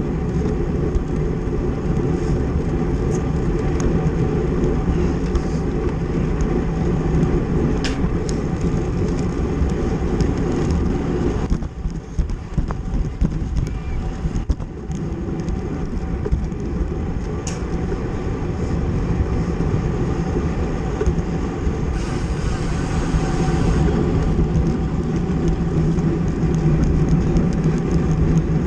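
Steady rush of wind on the microphone and road rumble from a bicycle racing in a criterium, with a few sharp clicks. The level dips briefly about twelve seconds in.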